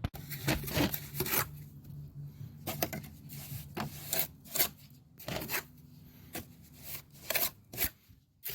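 Steel jointing trowel scraping mortar off a second trowel and pushing it into brick joints: a run of short, irregular scrapes.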